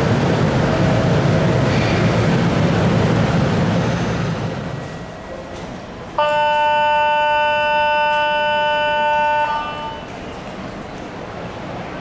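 Electric horn of a Kintetsu 8A series EMU sounding one steady chord for about three seconds, a little past halfway, the departure signal as the train pulls out. Before it, a loud steady rushing noise with a low hum dies away around four to five seconds in.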